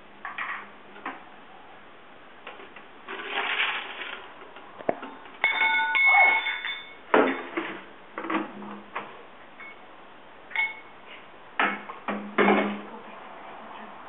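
Kitchenware clattering on a stone countertop: a string of separate knocks and clinks, with one ringing metallic clink about five and a half seconds in. The blender motor is not running.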